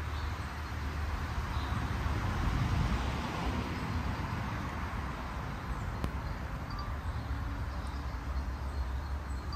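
Wind buffeting the microphone outdoors on a very windy day: an uneven low rumble under a steady hiss.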